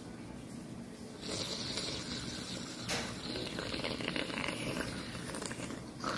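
A man breathing hard and hissing through his mouth with his lips pressed against a bag of ice, starting about a second in, with one short click about three seconds in; his mouth is burning from extremely hot chili wings.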